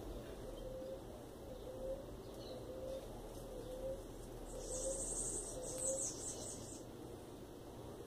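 Ruddy ground dove cooing: a series of short coos, about one a second. A high, rapid chirping joins in for about two seconds past the middle.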